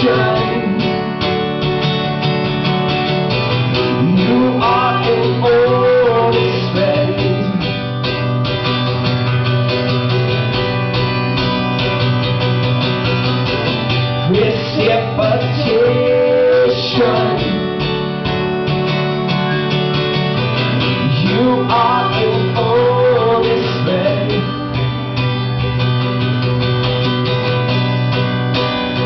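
Fiddle playing a sliding melody over a strummed acoustic guitar, performed live.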